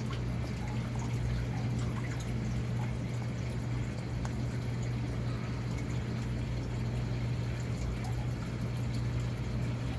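Aquarium water running and splashing, driven by a Jebao DCP-13000 return pump, over a steady low hum. The pump's flow is being stepped up toward its maximum.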